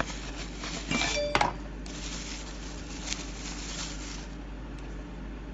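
Unboxing handling noise: a few sharp clicks and knocks of the cardboard box and speaker about a second in, then plastic wrapping crinkling for about two seconds.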